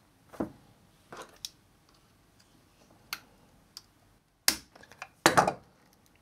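Scattered sharp clicks and snaps from a UGREEN 20W USB-C charger's plastic case being squeezed in pliers and pried open with a screwdriver, the loudest cracks coming about four and a half and five and a half seconds in.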